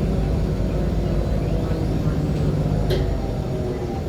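Inside a 2014 Nova LFSA HEV articulated hybrid bus under way: a steady low rumble from its Cummins ISL9 diesel and drivetrain. A faint rising whine comes in near the middle, and there is a brief click about three seconds in.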